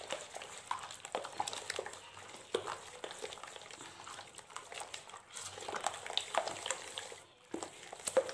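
A hand mixing a runny batter of eggs, sugar and oil in a glazed clay bowl: irregular wet squelches, slaps and clicks.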